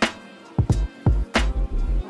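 Background music with a drum beat: heavy low kicks and sharp strikes several times a second over sustained instrumental tones.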